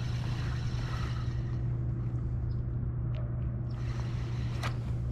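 Electric trolling motor on a fishing kayak running with a steady low hum while the boat is repositioned. A few light clicks are heard, the sharpest near the end.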